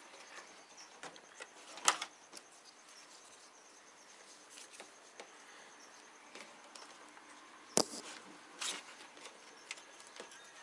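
Light rustling and small clicks of a wiring harness being handled and tucked into place in a car, with two sharper clicks, one about two seconds in and one near eight seconds. A faint steady high whine runs underneath.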